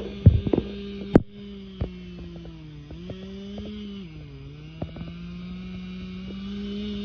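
Chainsaw running steadily at high speed while cutting through a thick spruce trunk, its pitch dipping briefly three times as it bogs down in the wood. A few sharp knocks sound in the first second or so.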